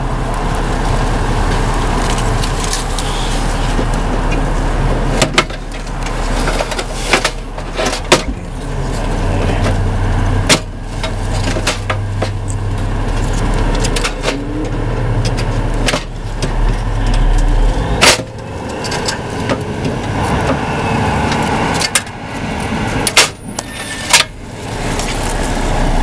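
Wind buffeting the microphone: a loud, steady rush with a low rumble, broken by scattered sharp clicks and knocks.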